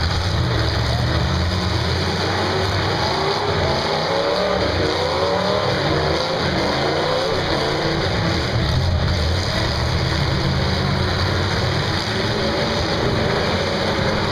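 Several demolition-derby cars' engines running and revving together in the dirt arena, their pitches rising and falling unevenly throughout.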